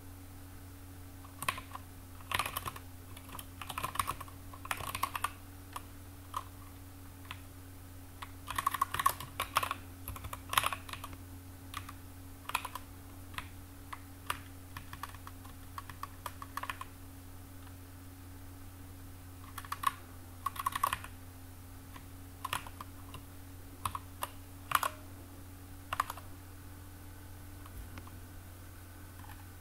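Typing on a computer keyboard: irregular bursts of keystrokes separated by pauses of a second or two, over a steady low hum.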